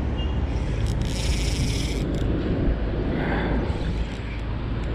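Spinning reel working while a bream is played: a rapid clicking buzz for about a second, starting about a second in, over a steady low rumble of wind on the microphone.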